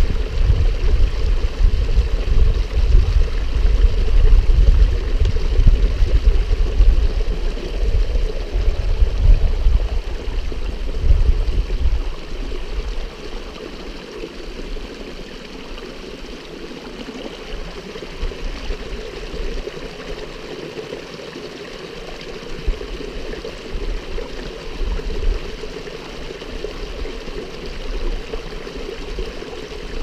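Small moorland stream trickling and gurgling over rocks, with a water bottle held under the surface to fill. A loud, uneven low rumble dies away about twelve seconds in.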